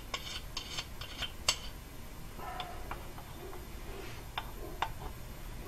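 Light metal clicks and clinks from a valve spring compressor being opened up and positioned over a cylinder head: a cluster of clicks in the first second and a half, then a few more later, with a brief squeak about two and a half seconds in.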